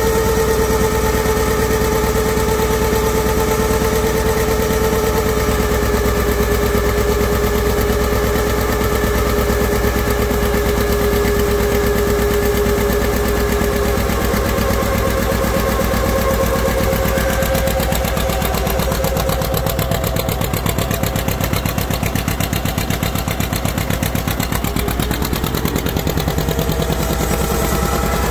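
A John Deere tractor engine runs steadily, driving an M&W FR-1000 hydraulic PTO dynamometer through its PTO shaft while the dyno's load handwheel is turned. The pitch sags slightly over the first half. This is a test run of the dyno's rebuilt oil pump and cooler circuit.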